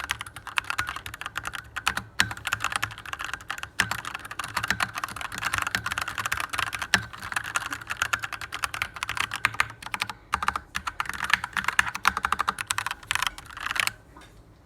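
Rapid typing on a mechanical keyboard: a dense run of key clicks with a few short pauses, stopping shortly before the end.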